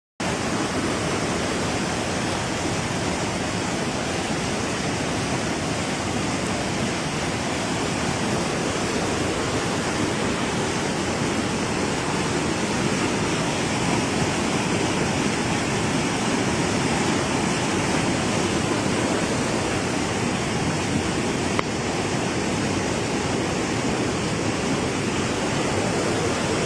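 Swollen river in flood, its water rushing steadily without a break.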